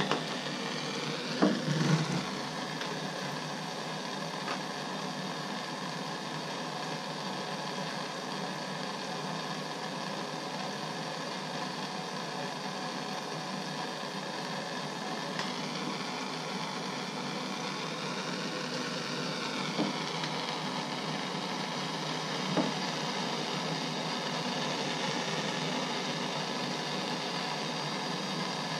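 Hose-fed gas torch burning with a steady hiss as it heats a copper pipe joint for soldering. A short cluster of knocks about a second and a half in, and two faint knocks later on.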